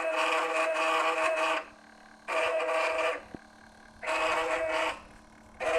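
A CNC laser engraver's stepper motors whining with a steady chord of tones as the head moves. The whine stops and starts sharply, in runs of about one to two seconds with short pauses between, three times.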